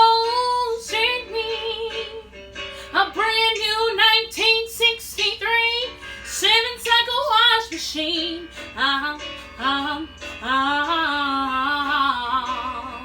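A woman singing a musical-theatre audition song in phrases of sustained notes with vibrato, ending on a long held note.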